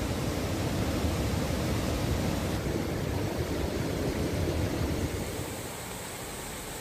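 Rushing floodwater of the swollen Alaknanda river, a steady noise strongest in the low range; it becomes quieter about five and a half seconds in.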